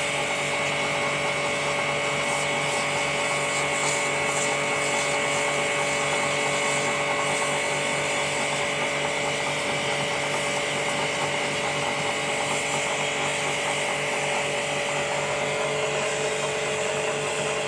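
Small electric pressure washer running steadily, its motor giving a constant whine and hum under the hiss of the water jet.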